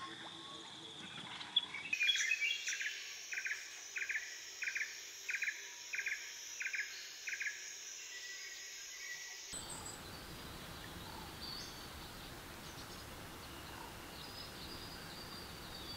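Nature ambience of birds and insects. A steady high insect drone runs while a bird repeats a short, sharp call about eight times in four seconds. Then a fainter open-air hiss follows, with a few scattered bird chirps.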